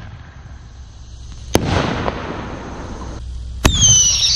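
Fireworks going off: a sharp bang about a second and a half in, followed by crackling, then near the end another bang with a shrill whistle of several tones, falling slightly in pitch.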